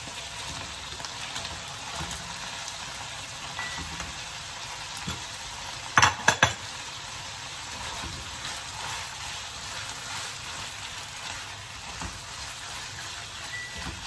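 Pork and raw chicken pieces frying in a wok, a steady sizzle with the sound of a spatula stirring and scraping. About six seconds in, a quick cluster of sharp knocks is the loudest sound.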